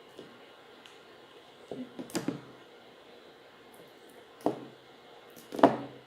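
Perfume bottle and sprayer parts being handled: a few short knocks and clicks, first a little cluster about two seconds in, then one past the middle and the loudest near the end.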